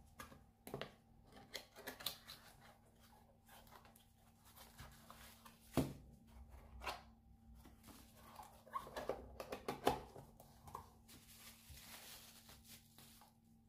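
Handling and unpacking of a small cardboard headlamp box: scattered clicks and taps of the flaps and card, with a sharp knock about six seconds in. A bubble-wrap bag crinkles and rustles near the end.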